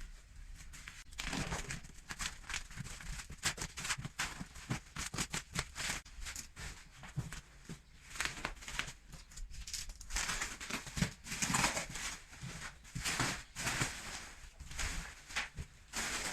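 Handling a large cardboard parcel and its packaging: irregular rustling, scraping and light knocks.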